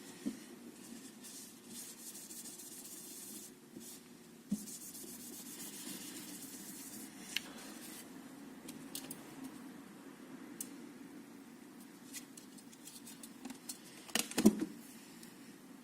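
Hands working on small parts: soft rubbing and scattered light clicks over a steady low hum, with a short cluster of sharper clicks about fourteen and a half seconds in.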